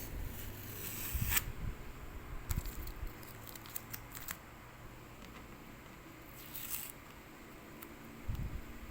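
Masking tape being peeled off a painting, heard as short crackling rips and snaps at irregular moments, the loudest about a second in and a longer rip near the end.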